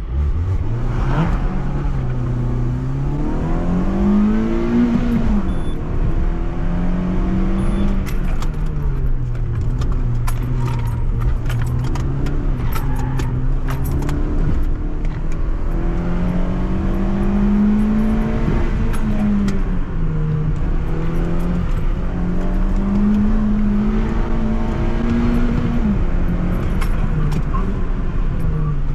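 Citroën C2 VTS petrol engine pulling away from the start line and being driven hard through an autoslalom course, its revs rising and falling several times as the driver accelerates, lifts and shifts between cones.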